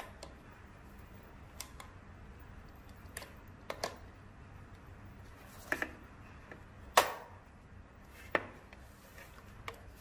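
Hard plastic clicks and knocks from a plug-in indoor doorbell chime unit being pressed and handled on a power strip: about eight separate sharp clicks, the loudest about seven seconds in.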